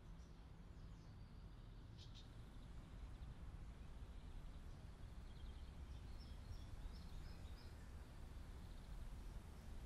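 Faint outdoor ambience: a steady low rumble with a few distant bird chirps, one about two seconds in and a small cluster around six to eight seconds in.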